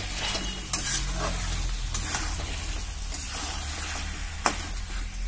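Chicken and potato curry sizzling in hot oil in a kadhai while a metal spatula stirs and scrapes it, in a run of short scrapes and knocks, the sharpest about four and a half seconds in.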